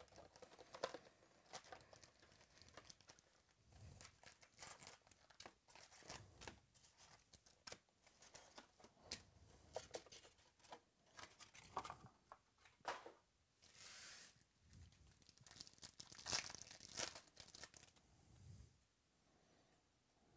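Soft rustling and handling of a cardboard trading-card hobby box, then crinkling and tearing as card pack wrappers are ripped open, loudest about two-thirds of the way in; it ends with quieter shuffling of cards.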